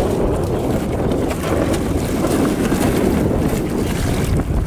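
Wind buffeting the microphone outdoors: a loud, steady, wavering low rumble.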